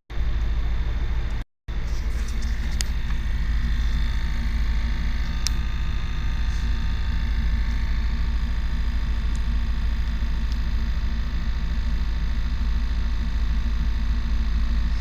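Chevrolet 350 TBI V8 idling steadily with a ticking that the owner traces to the rear center of the engine near the distributor. It began after an intake gasket change, and checks of the distributor, PCV valve, lifters and EGR solenoid have not found its cause. The sound cuts out for a moment about one and a half seconds in.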